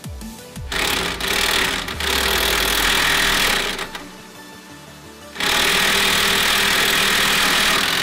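Impact wrench hammering on the 19 mm lower strut-to-knuckle nut and bolt of a Subaru Legacy's rear suspension, in two long bursts of about three seconds each with a pause between. The bolt is stubborn and slow to come loose.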